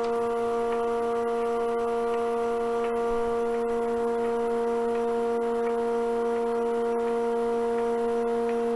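Wood lathe and its vacuum-chuck pump running, a steady machine hum with overtones that holds one pitch throughout.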